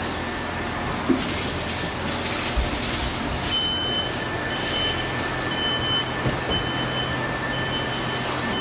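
EVA shoe-moulding press line running with a steady machine hum and hiss, a knock about a second in followed by a short hiss. From about three and a half seconds in, a high electronic warning beep repeats about once a second.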